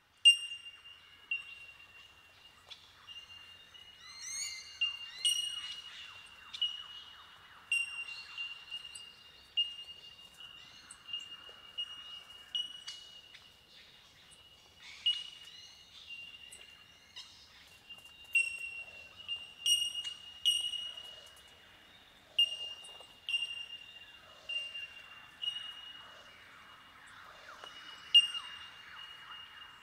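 A colony of bell miners (bellbirds) giving their ringing, bell-like 'tink' calls. Many birds overlap into an incessant, windchime-like chorus, with sharp single notes every second or so over a steady ring. Softer bird calls chatter underneath.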